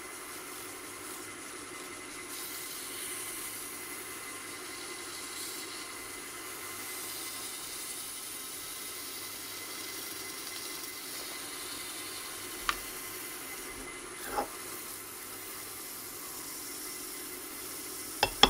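Abrasive paper hissing steadily against a spinning yew bud vase on a wood lathe, with the lathe running underneath. A few short sharp ticks come near the end.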